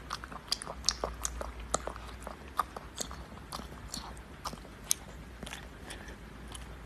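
Husky puppy eating from a bowl: an irregular run of small wet clicks and smacks from its mouth, several a second.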